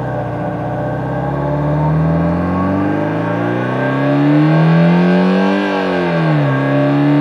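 Homemade optical engine-sound simulator imitating a Subaru EJ20 boxer four with equal-length exhaust, its linear vibration actuator ringing a steel plate. The engine note climbs steadily in pitch for about five seconds, dips sharply near six seconds, then holds steady.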